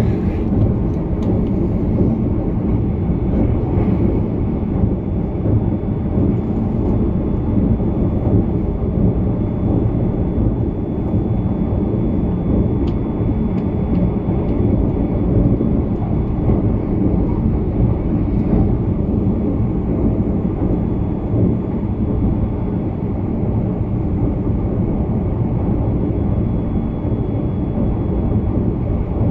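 Steady running noise of a Hitachi limited-express electric train (E657 series) at speed, heard from inside the passenger cabin: a continuous low rumble of wheels on rails with a faint steady high whine above it.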